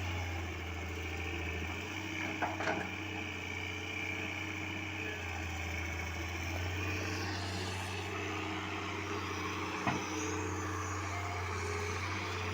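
Diesel engine of heavy earthmoving machinery running steadily, with short knocks about two and a half seconds in and again near ten seconds.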